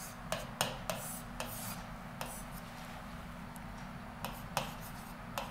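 A pen writing on a board: about a dozen short, irregular scratchy strokes as letters and a bracket are drawn, over a steady low hum.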